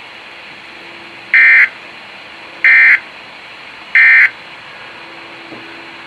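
Three short, identical high beeps about 1.3 seconds apart from a Midland weather alert radio's speaker, over a faint steady hiss.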